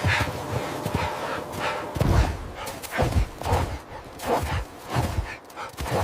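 Footsteps crunching through deep snow, a steady run of about two steps a second.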